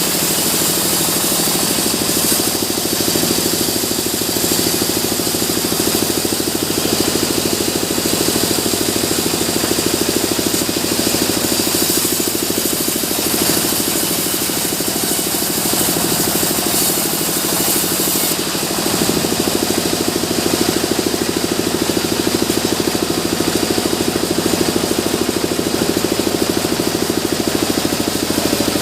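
Sawmill machinery running steadily: an engine-like drone with a fast, even pulsing rattle. The sound shifts slightly about two-thirds of the way in.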